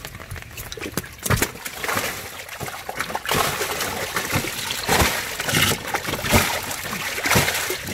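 Large fish thrashing at the surface of a water-filled tank, making irregular splashes and sloshing. It starts sparse and becomes a continuous churning splash about three seconds in.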